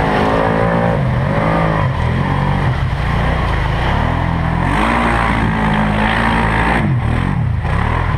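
4x4 ATV engine running loud under the rider, revving up and down, its pitch rising and falling several times.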